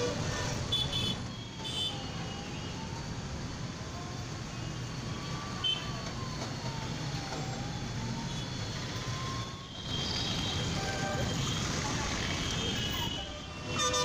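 Busy city road traffic: the mixed running of autorickshaws, motorcycles, cars and buses. A faint siren in the distance wails slowly up and down in pitch through the middle.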